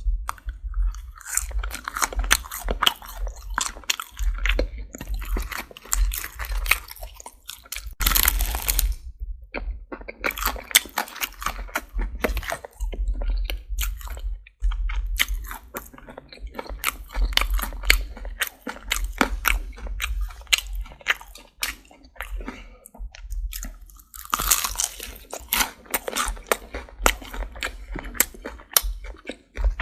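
Popeyes fried chicken's crispy breaded crust crunching and being chewed: dense, irregular crackling, with a loud burst about eight seconds in.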